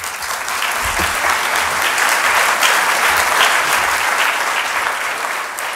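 Audience applauding, building up over the first couple of seconds and then slowly tailing off near the end.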